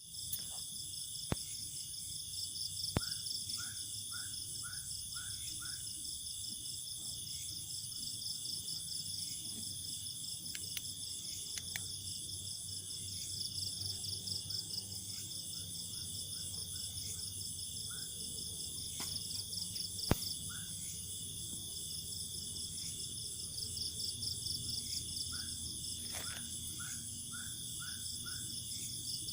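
Night chorus of crickets and other insects trilling steadily in a fast, even pulse. Runs of five or six short chirps repeat three times over it, and a few sharp clicks stand out, the loudest about twenty seconds in.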